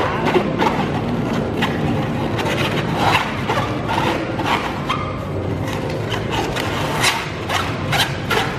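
Latex modelling balloon squeaking and rubbing again and again as it is twisted into a balloon dog, over a steady background hum.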